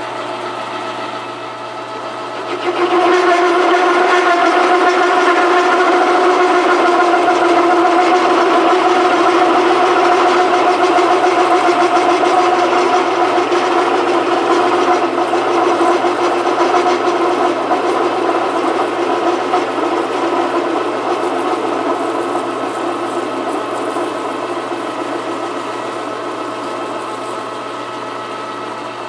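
Metal lathe parting off a spinning metal bar with a cutoff blade at a higher spindle speed and faster feed. About three seconds in, the cut starts and the blade chatters with a loud, steady resonant singing tone over the motor hum. The tone slowly fades as the cut goes deeper. The chatter comes from the resonant frequency of the chuck overhang and setup.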